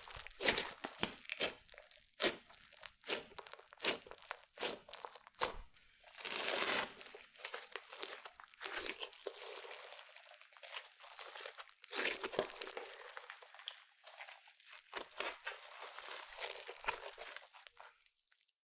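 Hands squishing and stretching clear slime with makeup and glitter mixed in: a dense run of sticky crackles and small pops as air pockets burst. It stops suddenly right at the end.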